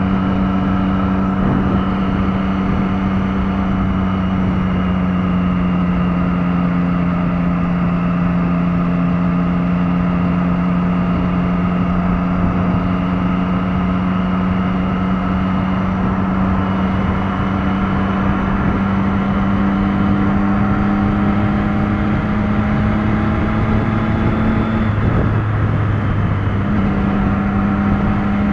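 Motorcycle engine running at a steady highway cruise, heard from the rider's seat, its note sinking slowly over a constant rush of wind and road noise. About 25 seconds in the engine note breaks off for a couple of seconds, then picks up again.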